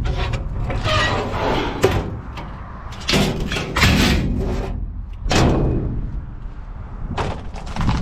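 Knocks, bangs and scrapes from a heavy metal freezer being wrestled and shifted, about eight separate impacts over a steady low rumble.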